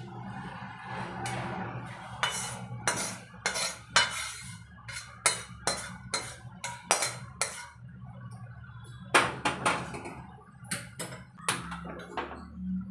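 A metal spatula scrapes and clinks against a kadhai (Indian wok) while roasted gram flour is scraped out onto a steel plate. The sharp strokes come irregularly, with a short lull about eight seconds in.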